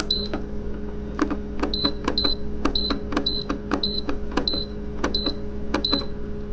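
Buttons on a BODEGA dual-zone car refrigerator's control panel being pressed repeatedly, each click answered by a short high beep, about nine in all, as the temperature setting is changed. Under them the fridge's cooling unit hums steadily while it runs.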